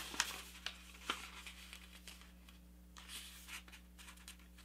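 Faint rustling and a few light taps of a square sheet of paper being handled and shifted while a fold is lined up. The taps come in the first second, and a softer rustle comes about three seconds in.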